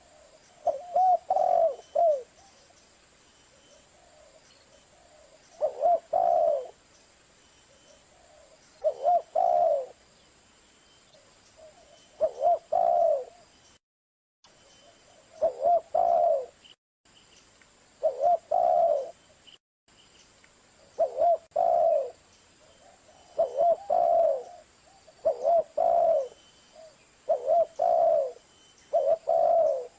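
Spotted dove (tekukur) cooing: short phrases of a few coo notes repeated every few seconds, coming closer together in the second half. The sound cuts out briefly three times.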